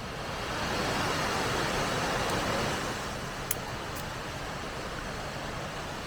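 Waterfall rushing in a steady roar of falling water, swelling louder from about half a second in and easing back near three seconds. A single sharp click sounds around three and a half seconds in.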